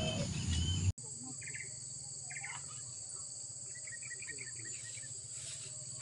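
A steady, high-pitched insect drone of crickets or similar insects, with a few short bird chirps scattered through it. It cuts in abruptly about a second in, after a brief louder noise.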